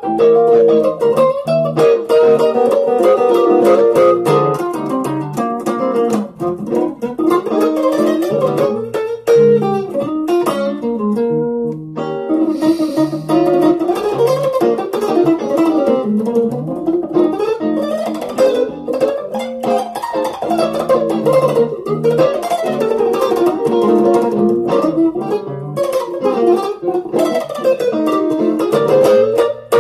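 Electric guitar played through a Zoom G1on multi-effects unit, playing a blues in B flat as a continuous run of changing notes.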